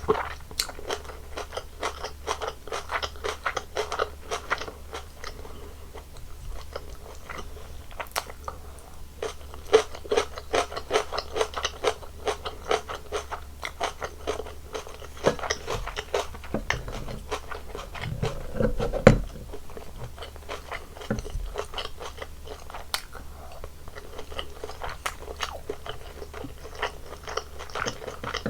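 Close-miked eating sounds of a Korean home meal of bulgogi, kimchi, laver and white rice: a continuous run of biting and crunchy, wet chewing. A louder low thump comes about two-thirds of the way through.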